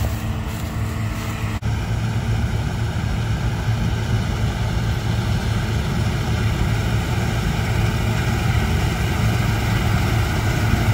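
Steady mechanical drone from running machinery, a low hum with several steady higher tones above it, broken by a sudden cut about a second and a half in.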